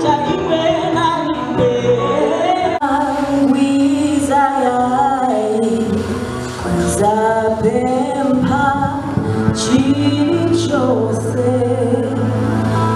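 A woman singing a gospel song into a microphone through a church PA, over steady instrumental backing. About three seconds in it cuts abruptly to another song.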